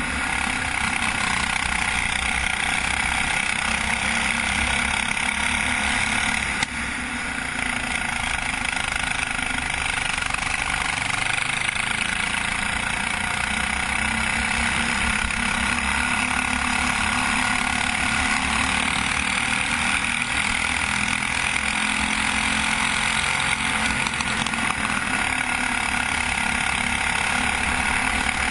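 Racing go-kart's engine running hard at speed, heard from a camera mounted on the kart, with a brief dip about seven seconds in.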